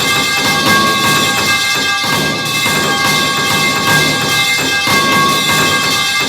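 Metal pipe falling meme sound effect stacked into a dense, unbroken din of many overlapping clangs. Steady metallic ringing tones hold underneath a constant clatter of impacts.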